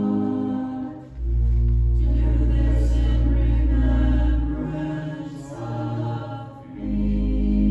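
Church choir singing an anthem over sustained pipe-organ chords, with a deep bass note that drops out twice between phrases.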